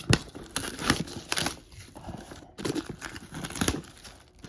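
Packaging of a Pokémon card Elite Trainer Box crinkling and tearing as it is unwrapped: a run of sharp, uneven rustles and rips.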